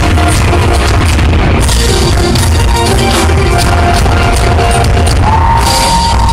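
Live rock band playing loudly, heard from within the audience, with dense drumming and long held notes, one rising into a sustained note about five seconds in.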